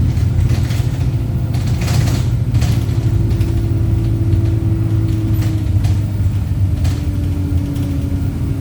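Cabin sound of a Wright StreetLite single-decker bus on the move: a steady low diesel engine drone with a whine that drops in pitch about seven seconds in. A few brief rattles and knocks from the body.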